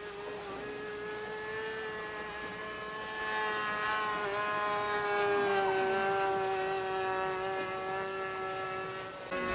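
Radio-controlled model aircraft's motor running steadily in flight: a high, even drone that swells louder for a few seconds in the middle, its pitch shifting slightly, then eases off.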